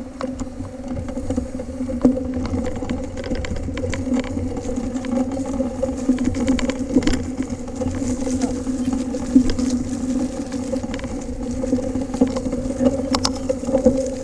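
Full-suspension 29er mountain bike being ridden along a dirt trail: a steady hum with low rumble, broken by frequent small clicks and rattles as the bike goes over bumps.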